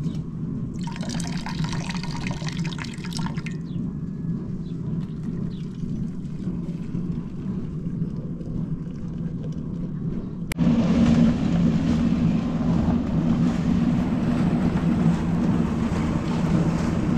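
Water poured into a metal kettle for about two and a half seconds, over a steady low hum. About ten seconds in, this cuts suddenly to a louder steady rush of wind on the microphone.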